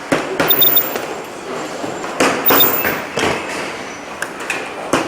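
Electronics assembly-line clatter: irregular knocks and clicks of parts and tools being handled, with a few short high beeps.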